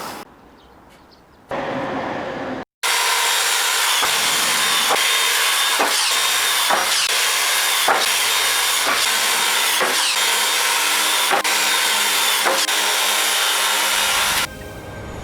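Woodworking power tool machining a wooden board, a loud steady cutting noise lasting about twelve seconds with scattered knocks and short falling whines, stopping near the end.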